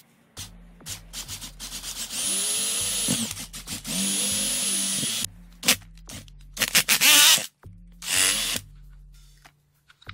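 Cordless drill running in four short bursts as it bores through the plastic housing of a Bosch GDX 18V-EC impact driver, the last holes at 13 mm. A high motor whine sits over each burst, and the loudest burst, about seven seconds in, wavers in pitch.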